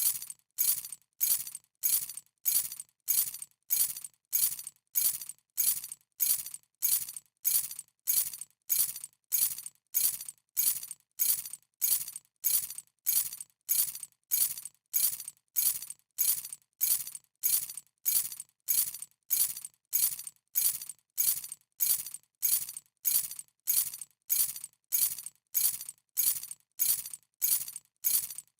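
A bunch of keys dropped onto a hard surface, a short bright metallic jingle that dies away quickly. The same drop repeats evenly, about every 0.6 seconds.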